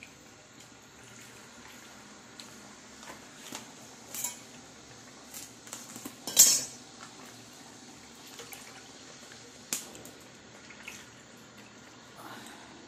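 A ladle knocking and scraping against a stainless-steel pot as a thick, simmering herbal decoction is stirred. There are a few sharp clinks, the loudest about six and a half seconds in, over a faint steady bubbling.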